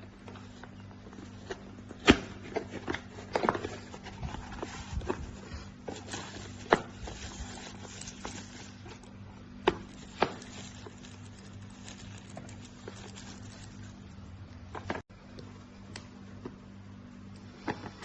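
Irregular clicks and knocks, a few of them sharp, over a steady low hum.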